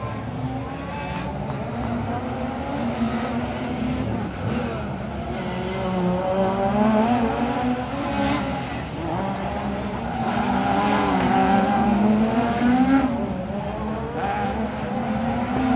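Rally car engine revving hard through a tight stage, its note rising and falling repeatedly as the driver accelerates and lifts between corners, with some tyre squeal.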